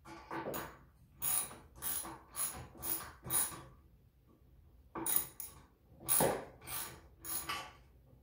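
Ratchet wrench clicking as bolts are tightened into a wooden frame, in two runs of quick back-and-forth strokes, about two a second, with a short pause about four seconds in.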